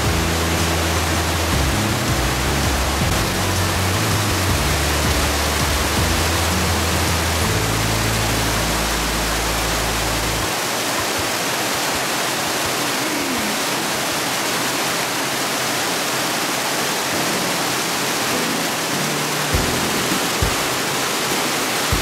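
Spring water rushing and splashing as it pours over a rock ledge: a loud, steady rush. Low background music sits under it until about ten seconds in.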